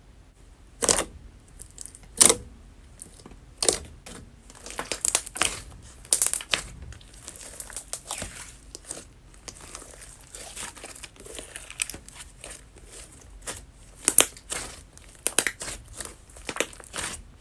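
Strawberry-milk tapioca slime being pressed and stretched by hand: sticky crackling and clicking throughout, with a few sharp, loud pops, the loudest about one and two seconds in and again near the end.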